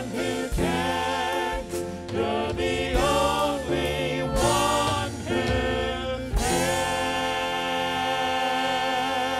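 Contemporary worship song sung by a group of singers with instrumental backing; after a few sung phrases the music settles about six seconds in onto one long held closing chord.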